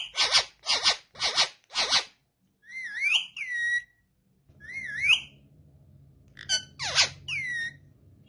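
Indian ringneck parrots calling: four quick harsh squawks in the first two seconds, then several whistled calls that rise and fall in pitch. A faint low hum starts about halfway.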